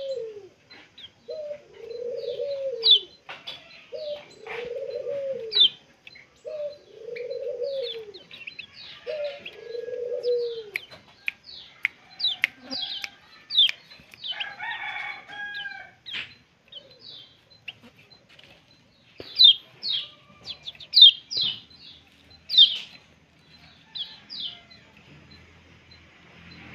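Outdoor birdsong: short, high, falling chirps scattered throughout, coming in a quick cluster about two-thirds of the way in. Under them for the first ten seconds, a lower arched call repeats about every second and a half.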